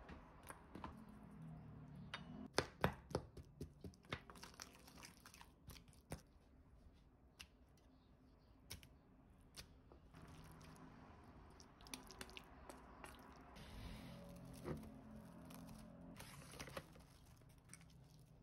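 Wooden spoons stirring and scraping a thick, sticky chili-paste marinade in a stainless steel bowl, with wet squishing and a run of sharp clicks and knocks of spoon against bowl a few seconds in.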